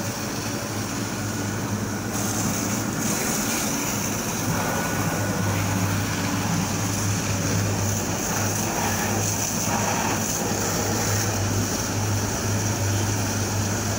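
High-pressure water jet from a drain-jetting hose spraying onto wet paving and into a metal tank: a steady hiss and splash over the constant drone of the jetting machine's engine. The hiss of the spray gets louder about two seconds in.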